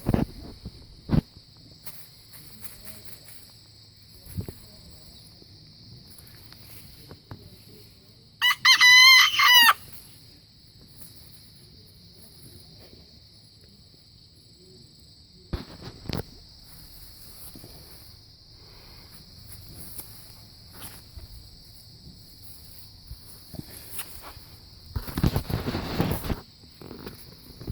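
Bantam rooster crowing once, a loud call of about a second and a half, a little over eight seconds in. A steady high hiss runs underneath, with a few scattered knocks and a short rustling burst near the end.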